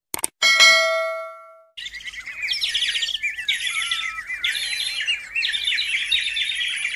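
A single bright chime rings out and fades over about a second. Then many small birds chirp and twitter in quick, overlapping calls.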